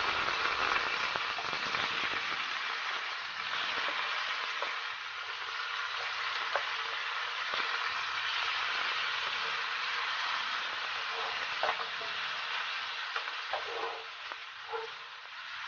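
Raw chicken pieces sizzling steadily in hot oil in a metal wok as they are seared, with a few light ticks from the wooden spatula stirring them, more of them near the end.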